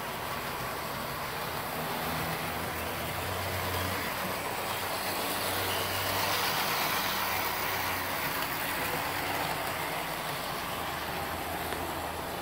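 HO-scale model diesel locomotives running on the layout track: a steady whir of the small electric motors and gears with the rolling clatter of wheels on rail. It swells in the middle as a locomotive passes close by, over a low steady hum.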